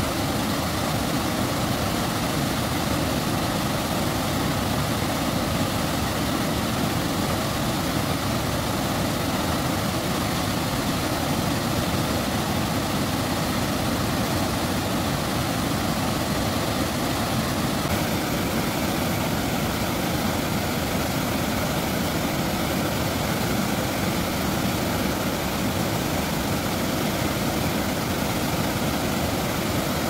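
A large waterfall: a heavy, steady rush of water pouring over a rock ledge and crashing into a foaming pool, loud and unbroken.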